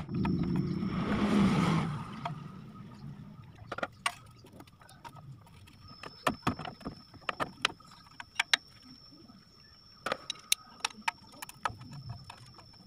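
Scattered sharp metallic clicks and taps as the steel oil pan bolts are loosened and turned out with a ratchet and by hand, with the pan being dropped off the engine. A louder noise with a low hum fills the first two seconds.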